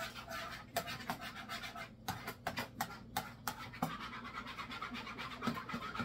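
Danish dough whisk stirring warm water and yeast in a plastic mixing bowl: quick, irregular scraping and clicking against the bowl with a watery swish.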